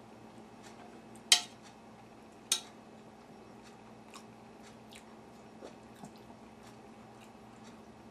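A metal spoon clinks sharply twice against a dish, a little over a second apart, amid quiet chewing and faint, fairly regular ticks.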